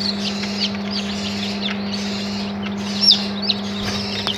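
Newly hatched Rhode Island Red chicks peeping: many short, high chirps that fall in pitch, over a steady low hum.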